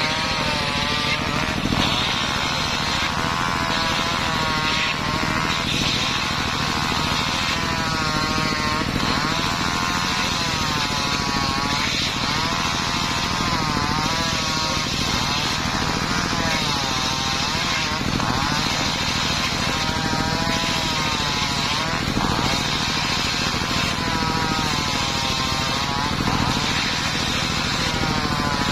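Homemade circular saw running steadily and cutting wood, its pitch dipping and recovering roughly every two seconds as the blade bites into each cut.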